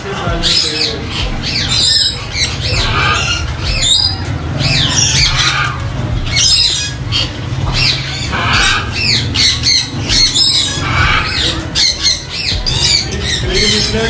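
Parrots squawking, call after call with some overlapping, over a steady low rumble.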